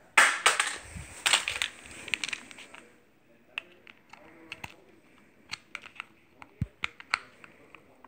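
Rustling and knocks of handling for the first three seconds, then sparse small sharp clicks of a small screwdriver's tip against the screws and metal of a small plate.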